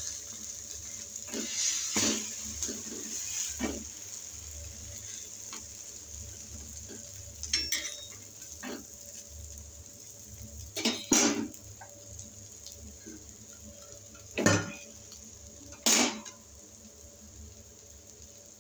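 Spatula tapping and scraping against a flat griddle (tawa) as an omelette fries: scattered sharp clicks and knocks, the loudest in the second half, over a faint steady sizzle of frying oil.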